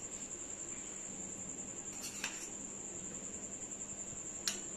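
Quiet eating sounds of fingers working rice and curry on plates, with two short light clinks of utensils, about two seconds in and near the end. A steady high-pitched pulsing tone and a low hum run underneath.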